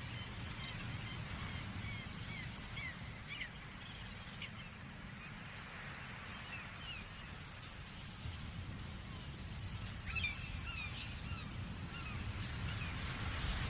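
A colony of seagulls calling from the sea cliffs: many short, high calls that slide up and down in pitch, thickest at the start and again about ten seconds in, over a steady low rumble.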